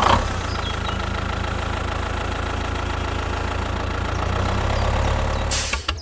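Tractor engine running steadily with a low rumble. A short hiss comes near the end, and the engine stops just after it.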